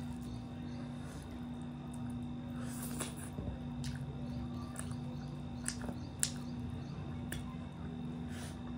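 Eating by hand: fingers squishing and pulling apart curried fish and rice, then biting and chewing, with a handful of sharp wet clicks and smacks, the loudest about six seconds in. A steady low hum runs underneath.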